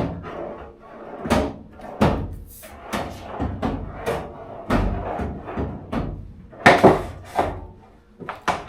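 Steel drawers of a Yukon tool chest sliding open and shut on their slides, again and again, with knocks as they hit their stops.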